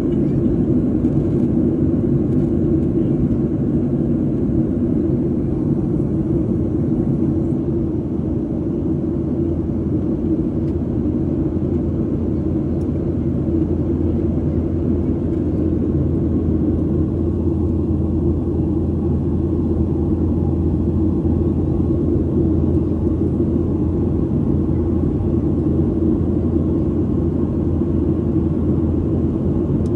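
Steady low drone of a Boeing 737 in flight, engine and airflow noise heard inside the passenger cabin.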